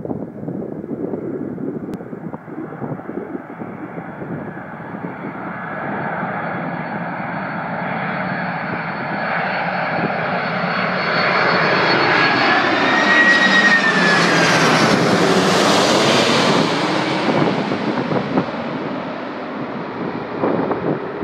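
Four-engine jet airliner on final approach passing low overhead: the engines' hiss and high whine grow steadily louder, a whistling tone rises and falls around the middle, and the sound peaks about 15 seconds in, then fades as the aircraft moves away. Wind buffets the microphone in the first few seconds.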